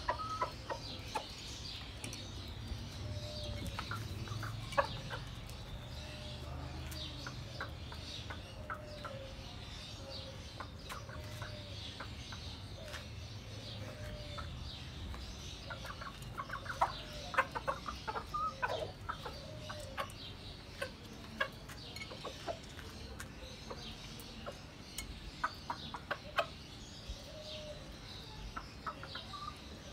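Chickens clucking: a run of short, low clucks repeating about once a second, with clusters of sharp taps about halfway through and near the end. A steady low rumble sits underneath.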